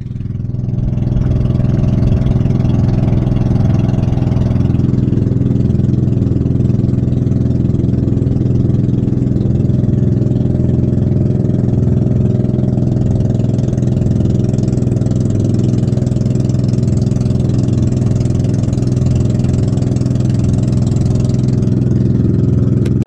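Engine of a bangka outrigger boat running steadily under way, one unchanging low note.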